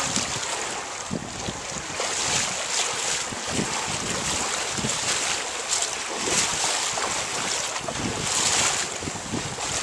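Wind on the microphone over water splashing along the hull of a sailboat under way, with irregular low wind thumps.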